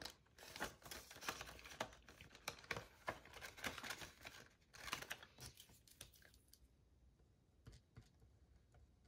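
Paper banknotes being handled, counted and slid into a clear plastic binder pocket: quiet rustling and crinkling with small clicks, thinning out after about five seconds.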